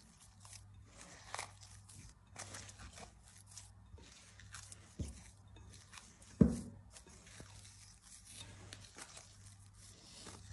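Faint, irregular squelching and rustling of hands folding soft, wet dough in a glass bowl, with crinkling of cling film. One louder thump comes about six seconds in.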